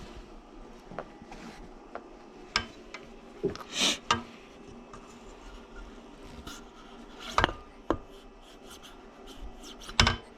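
Hand tools and metal parts being handled at a workbench: scattered clicks and knocks, a short scraping rub about four seconds in, and a louder knock near the end.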